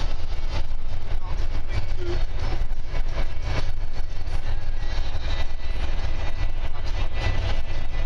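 Steady low rumble of a vehicle driving at motorway speed, engine and tyre noise heard from inside the cabin.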